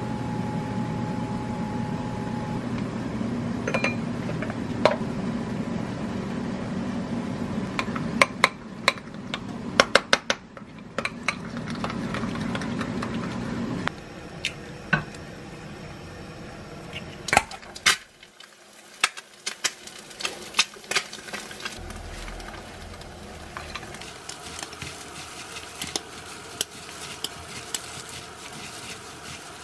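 Kitchen sounds: a spoon clinking against a ceramic bowl while stirring a chili-flake sauce, a run of sharp clicks over a steady hum. After the hum stops, an egg is cracked against a frying pan, and later come soft clicks of gloved hands mixing noodles in a metal bowl.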